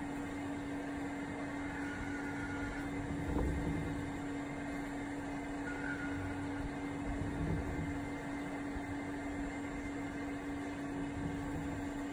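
SYIL X5 CNC mill drilling Nitro V steel blanks under flood coolant: a steady spindle tone over an even machining noise, with a low thud about every four seconds.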